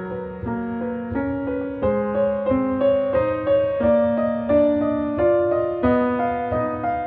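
Background music: a piano playing a gentle melody, a new note or chord about every half second.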